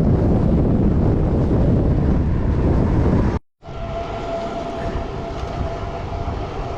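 Strong gusty wind buffeting the microphone of a moving bicycle with a loud low rumble. It cuts off abruptly about three and a half seconds in, then continues as a quieter steady rush with a faint steady whine.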